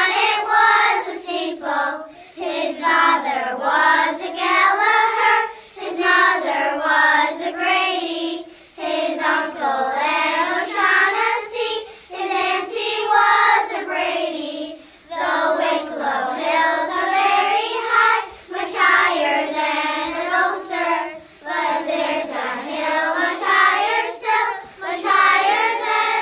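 A child singing a simple song unaccompanied, phrase by phrase with short breaths between lines.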